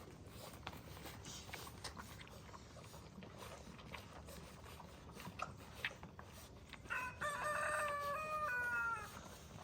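A rooster crowing once, a stepped call about two seconds long starting about seven seconds in, over faint scattered clicks.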